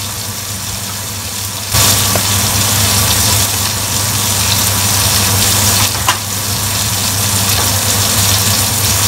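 Bitter gourd and tomato sizzling in a steel cooking pot on the stove, over a steady low hum. The sound grows louder about two seconds in.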